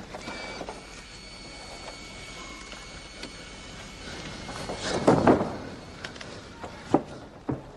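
Arena background noise around a ring, with a faint steady high tone in the first half, a short loud burst of noise about five seconds in, and two sharp knocks near the end.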